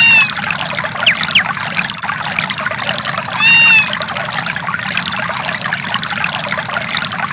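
Samsung SGH-X610 ringtone of nature sounds: a steady rush of running water with short high animal-like calls, one right at the start and another about three and a half seconds in, and a quick rising whistle about a second in.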